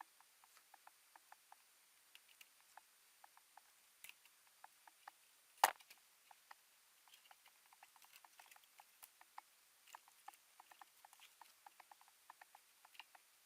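Faint, irregular small clicks and taps, several a second, as laptop parts and small tools are handled, with one sharper click about halfway through.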